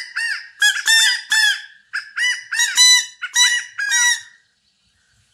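Homemade quail call of scrap wood and a rubber band, blown to imitate a California or Gambel's quail: four quick phrases of two or three short, arching notes, with a pause near the end.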